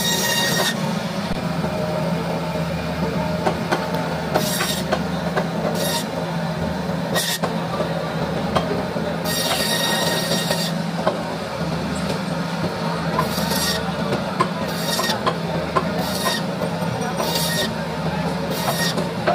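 Band saw running steadily with a low hum, slicing a rohu fish into steaks, with a short high hiss about ten times as the blade cuts through the fish, one longer cut about halfway through.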